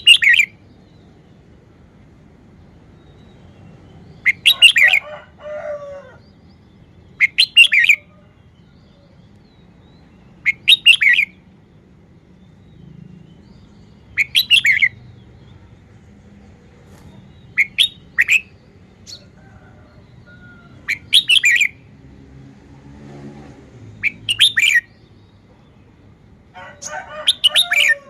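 Red-whiskered bulbul singing short, loud, high-pitched phrases, one about every three seconds.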